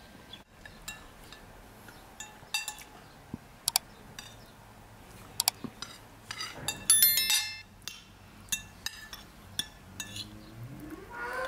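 Metal spoons clinking against china plates and teacups in a run of short sharp clinks, with a louder cluster of ringing clinks about seven seconds in. Near the end a cow starts a rising moo.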